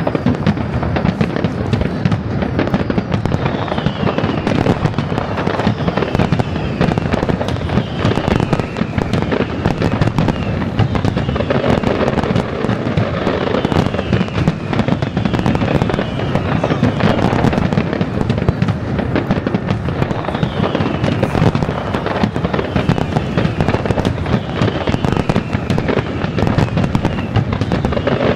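Fireworks display going off in quick succession, a dense, unbroken crackle of bursts and bangs.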